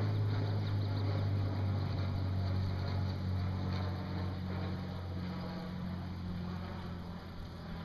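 Boat motor humming steadily at low speed, with faint mechanical clicking over it.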